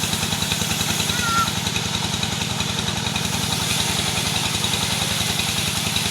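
Engine running steadily, an even rapid chugging that does not rise or fall.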